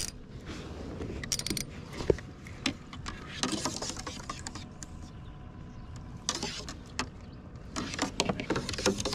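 Hobie kayak's MirageDrive pedal drive being pedaled: irregular mechanical clicks and creaks, with a few short bursts of rushing noise.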